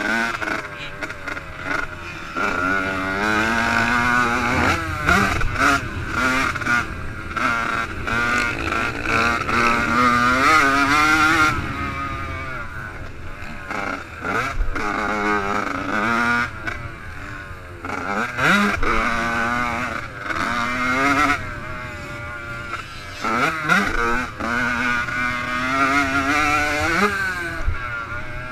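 Yamaha YZ85's 85cc two-stroke single-cylinder engine being ridden hard on a motocross track, revving up through the gears, its pitch climbing and dropping back again and again as the throttle is opened and chopped.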